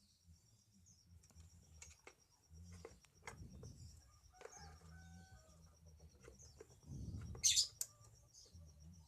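Faint, scattered light clicks of hand tools on the Honda Supra 125's valve adjusters as the adjuster lock nuts are set and tightened, over a steady high insect trill. About seven and a half seconds in comes one short, louder high-pitched chirp, bird-like.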